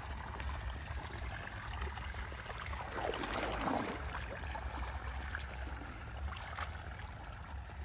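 Water flowing and trickling steadily in a small rice-field stream, with a brief louder stretch about three seconds in.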